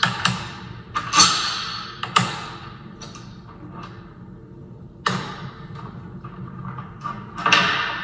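Metal deadbolt parts clanking and rattling against a door as the old lock is pulled out of it: a few sharp knocks with a ringing tail, about a second apart at first and again about five seconds in, with small clicks between.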